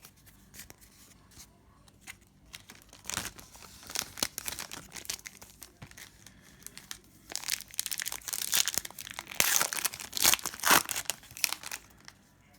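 A sealed pack of trading cards being torn open and its wrapper crinkled in the hands: irregular crackling and tearing, loudest in a long stretch in the second half.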